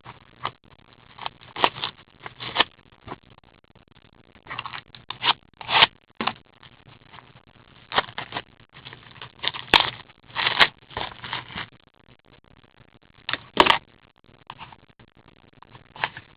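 Trading-card packs being torn open and the cards handled: irregular short rustles and scrapes of wrapper and card stock, with a few sharp clicks.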